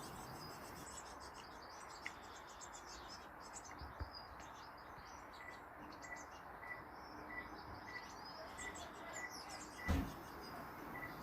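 Small garden birds chirping faintly, with one bird repeating a short, even note about two to three times a second through the second half. A single dull thump near the end.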